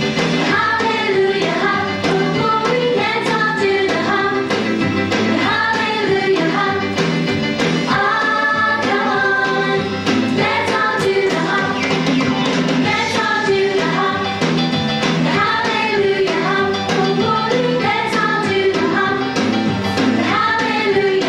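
A song playing: a singing voice over a steady beat and bass line.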